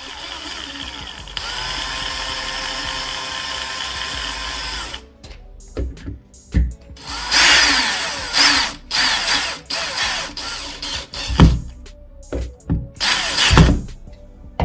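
Power drill running in one steady run of about three and a half seconds, then in several shorter bursts, with a few sharp knocks near the end.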